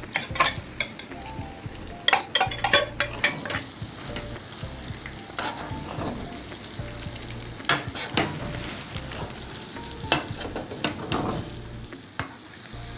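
Chicken and bamboo shoot frying in a wok, sizzling steadily while they are stirred. A metal utensil scrapes and clicks against the pan in irregular clusters.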